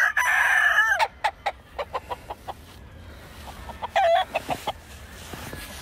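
A gamecock crowing: the crow is held on a high note and ends with a falling note within the first second. Then comes a run of short, sharp clicks and, about four seconds in, a brief call.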